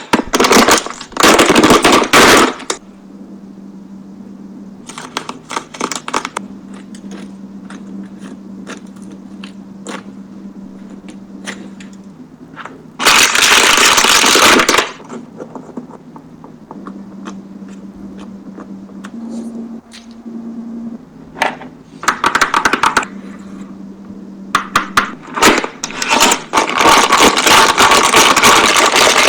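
Plastic fidget toys being handled: several loud bursts of crackling and crunching, with scattered clicks between them, over a steady low hum.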